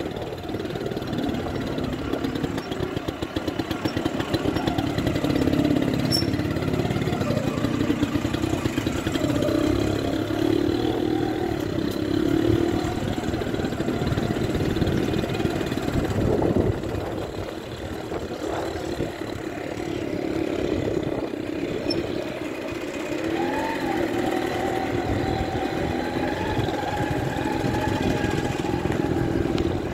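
Motorcycle engine running steadily while being ridden at low speed, its pitch rising and falling with the throttle, including a brief rise about two-thirds of the way through.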